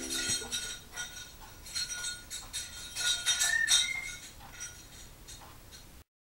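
The last ukulele chord fading out, followed by a scattering of light, irregular clinks with a faint high ring, busiest about three to four seconds in. The sound cuts off abruptly near the end.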